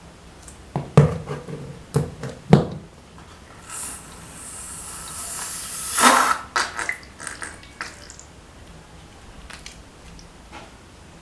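Balloon-slime making with no talk: a few sharp taps and knocks, then a hiss that builds for about two seconds and ends in a louder wet squelch, followed by small crackling sticky sounds.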